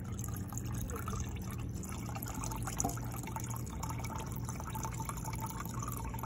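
VM&P naphtha pouring from a metal can into a plastic measuring cup of diesel fuel, a steady trickling splash of liquid into liquid, with a low steady hum underneath.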